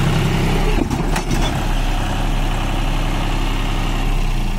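Tractor diesel engine running steadily with a regular low throb. Its note is briefly broken by a few clicks and a dip in loudness about a second in.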